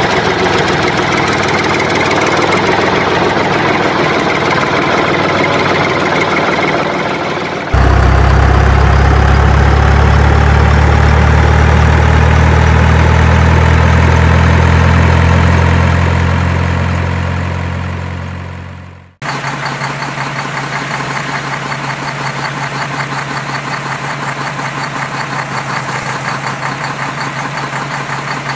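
Engine sound effects laid over the toy footage, in three abrupt pieces. First a rough-running engine. About eight seconds in, a deeper, louder engine that slowly rises in pitch and fades out at about nineteen seconds. Then a different engine idling steadily.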